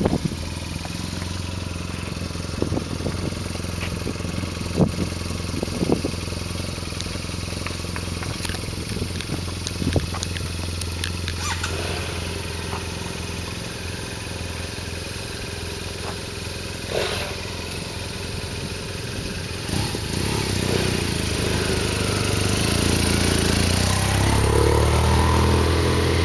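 BMW F650GS and R1200GS boxer-twin motorcycles running at idle with a steady low engine note, with a few brief sharp clicks along the way. In the last several seconds an engine grows steadily louder as a bike pulls away and rides toward the microphone.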